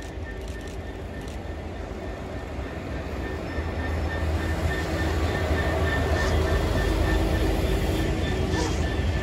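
A train approaching along the line, its rumble growing steadily louder, with a couple of steady tones running through it.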